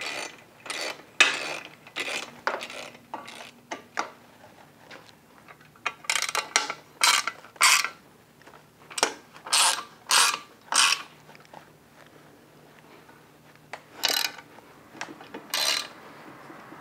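Socket ratchet wrench clicking in short rasping strokes as it tightens the bolts of a motorcycle rear luggage rack. The strokes come in scattered bursts, with a close run about every half second in the middle.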